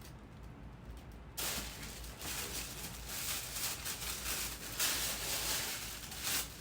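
Paper crinkling and rustling as it is handled, starting abruptly about a second and a half in and continuing in irregular crackles.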